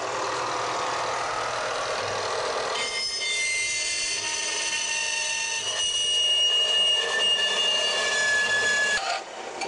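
Harbor Freight metal-cutting bandsaw running. About three seconds in, its blade starts cutting through a metal flat bar, and the cut brings a steady high-pitched squeal of several ringing tones that lasts until the cut nears its end.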